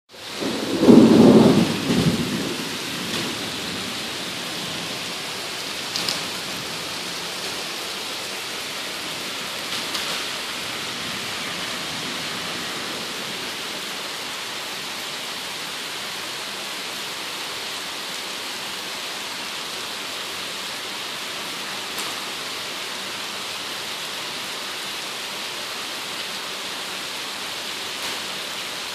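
Heavy rain falling in a thunderstorm, a steady even hiss, opened by a loud low rumble of thunder in the first two seconds. A few faint sharp ticks stand out from the rain later on.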